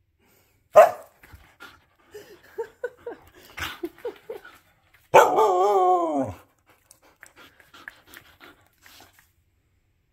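Siberian husky barking and vocalising in play: a sharp bark about a second in, a run of short low grumbles, then a long wavering yell of about a second near the middle that drops in pitch at the end.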